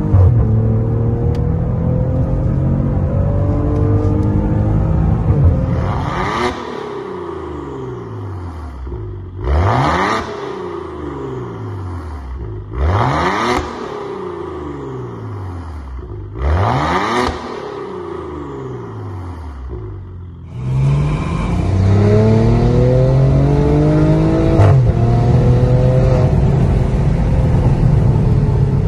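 Maserati Ghibli SQ4's twin-turbo V6 through a Tneer aftermarket catback exhaust: accelerating under way, then four short free revs that drop back to idle with the car standing, then accelerating hard again with an upshift about two-thirds of the way through.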